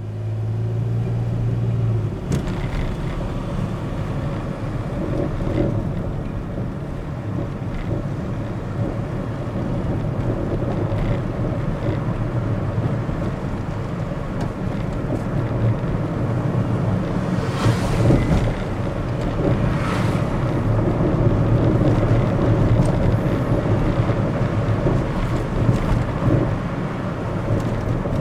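A Daihatsu Move Custom RS (LA100S) being driven: steady road and running noise with a few irregular knocks, the most prominent ones about two-thirds of the way through. The knocks are the 'gotogoto' clunk that appears while driving, which the owner is chasing.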